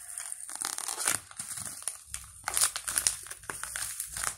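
Packaging of an instant-snow kit crinkling and rustling as it is handled and opened, with irregular small crackles throughout.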